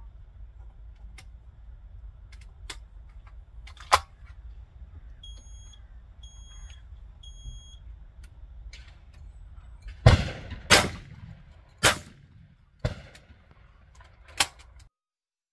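Shotgun fired twice in quick succession, two loud sharp shots well under a second apart about ten seconds in, followed by three fainter bangs. Before the shots there is a single sharp click and three short high electronic beeps, over a low steady rumble.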